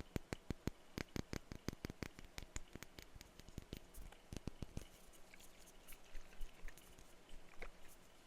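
Rapid, sharp tapping on perfume bottles, about five taps a second for the first five seconds, then softer, sparser light taps.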